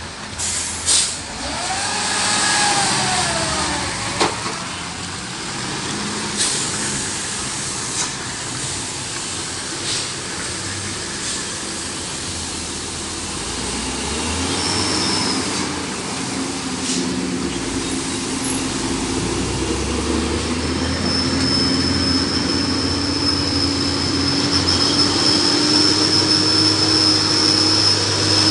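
Heavy diesel trucks on a wet mountain road: a three-axle dump truck's engine and tyres on the wet asphalt, with a squeal that dips and rises about two seconds in. In the second half a Hino tanker truck's diesel engine grows louder as it approaches, with a steady high whine over it.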